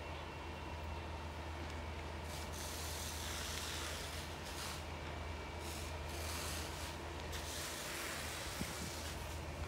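Fire-scene noise heard from across the green: a steady low hum, with patches of hiss that come and go from about two seconds in.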